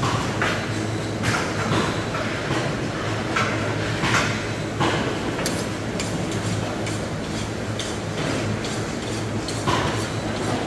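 Knife work on a stingray: irregular short scraping and knocking strokes, roughly one every half second to a second, over a steady low hum.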